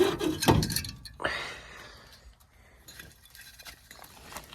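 Light metal clinks and knocks from removed gas furnace burners and tools being handled, with a brief scrape about a second in.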